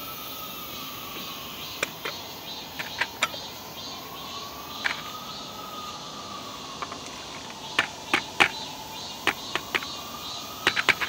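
Cats eating from bowls: irregular sharp clicks and crunches of chewing and bowls, bunched in short runs. A faint background tone rises and falls slowly, about every four seconds.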